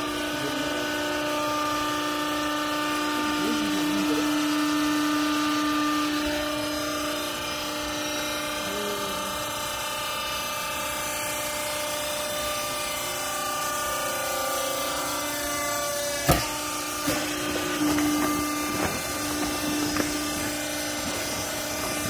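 Vertical clothes baler's hydraulic power unit running with a steady hum while its lifting chamber is raised off the finished bale. A sharp knock about sixteen seconds in, then a few smaller knocks.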